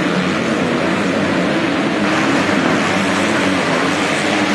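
Several motocross bikes racing in a pack, their engines revving up and down in an overlapping drone inside an indoor arena.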